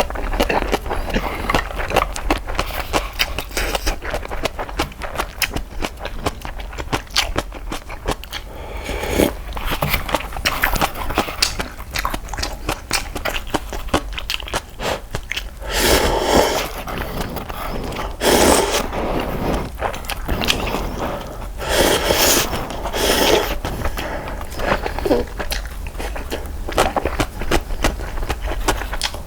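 Close-miked eating of instant cup ramen: steady chewing with many small wet clicks and smacks, and a few louder, longer noisy stretches about midway and again a little later.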